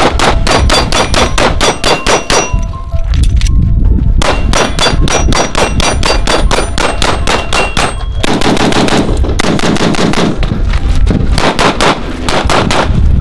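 Rapid strings of pistol shots, about five or six a second, with steel plate targets ringing as they are hit; the firing pauses briefly about three and a half seconds in, then resumes.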